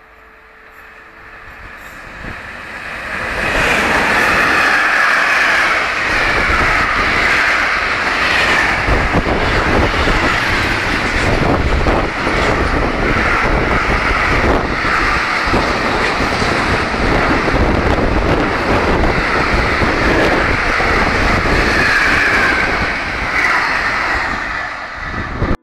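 Container freight train passing close by: the sound swells over the first few seconds as it approaches, then holds as a loud, steady rumble of wagon wheels with rapid clicks over rail joints and high, wavering wheel squeal, and cuts off suddenly at the end.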